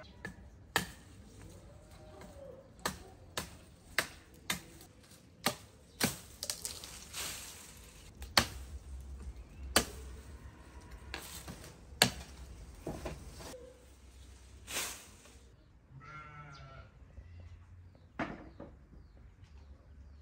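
Sharp snaps and cracks of tree branches being broken off, about fifteen of them at irregular intervals, followed near the end by a single bleat.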